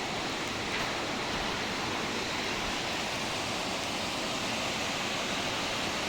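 Steady rush of a waterfall and creek below.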